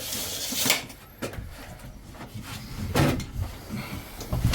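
A few knocks and scraping sounds from hands and tools working a plasterboard ceiling sheet against its timber framing, spaced irregularly.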